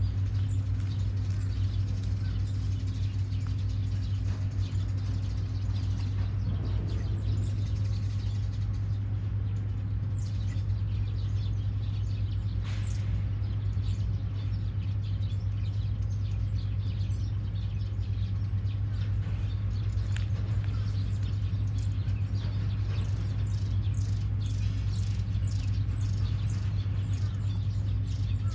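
Small birds chirping with short, high, downward-sliding calls that come thicker and faster in the last third, over a steady low hum.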